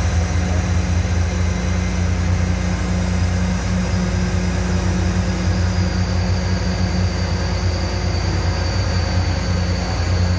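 Heavy diesel engine running steadily close by, a loud, even low drone that holds without change.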